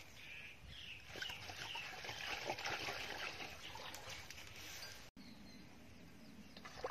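Birds chirping over outdoor rural ambience, with scattered light clicks and knocks. The sound drops out for an instant about five seconds in and the background changes after it.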